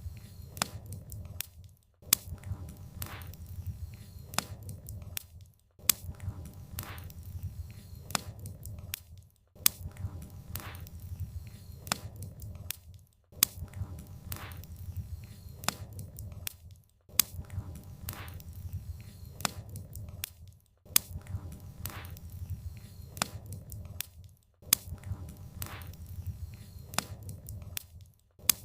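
Wood fire crackling with frequent sharp pops over a low rumble. The same few seconds of fire sound repeat about every four seconds, with a brief drop-out between repeats.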